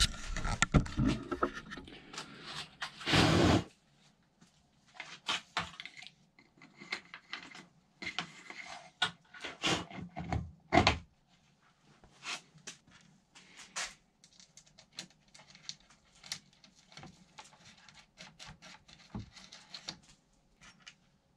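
Workbench handling noises: scattered knocks, clicks and scrapes as a plastic tail light and a wooden panel are moved and fitted together, with a louder scrape lasting about half a second about three seconds in.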